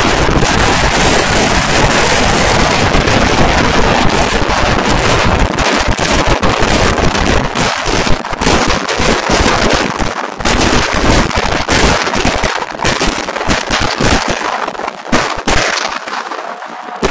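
Vedikettu fireworks going off in a dense barrage, the bangs coming so fast they run together into one continuous din, then thinning into more separate bangs near the end.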